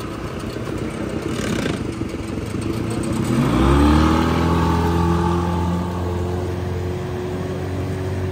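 Mercury 25 hp outboard motor on an aluminium boat idling, then opened up about three seconds in with a quick rise in pitch. It then runs steadily at speed as the boat pulls away through the water.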